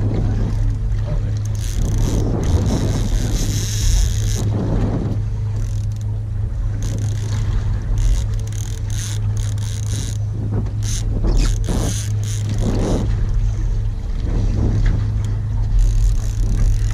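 Boat's outboard motor running at idle with a steady low hum, and irregular rushes of noise over it.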